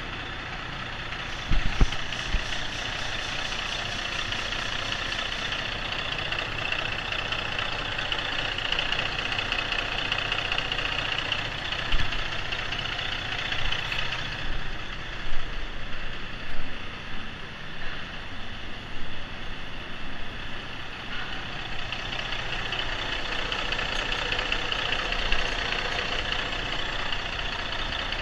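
Cummins 475 hp heavy-truck diesel engine running steadily at idle, shown to be a runner. A few short thumps stand out near the start and around the middle.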